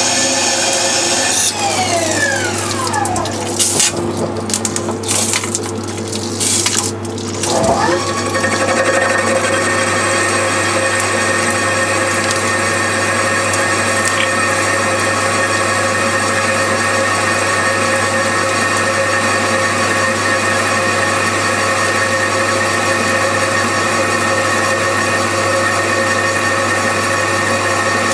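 Haas TL2 CNC lathe running a program: the spindle whine glides up and down in the first couple of seconds, with several short bursts of noise over the next few seconds. From about eight seconds in, the spindle and drives run at steady speed with a constant hum and whine.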